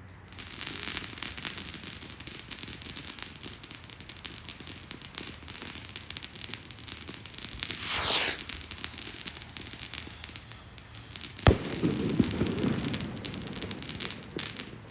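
Fireworks going off: dense crackling throughout, with a brief whistle falling in pitch about eight seconds in and a single sharp bang, the loudest sound, a few seconds later, followed by a low rumble.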